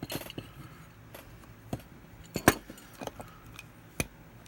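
Small metal parts of a pop rivet gun being handled during disassembly: scattered light clicks and clinks of washers and steel pieces, the loudest about two and a half seconds in.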